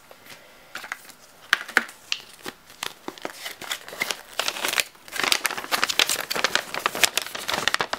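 Packaging crinkling and rustling as the contents of a trading card theme deck box are unpacked by hand, with scattered crackles that grow much busier about halfway through.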